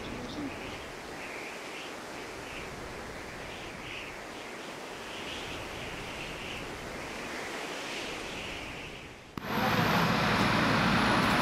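Steady outdoor ambience, an even wind-like hiss with faint scattered higher sounds over it. About nine seconds in it cuts abruptly to louder outdoor crowd ambience, people murmuring.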